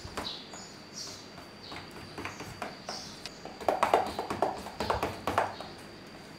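A spoon stirring a thick yogurt, cream and ground-almond paste in a stainless steel bowl, knocking and scraping against the metal in irregular clicks, with a louder run of clatter a little past the middle.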